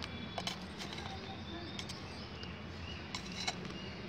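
Scissor blades digging and scraping into dry potting soil in a clay pot, with a few sharp scrapes and clicks as the crust breaks, over a steady low background hiss.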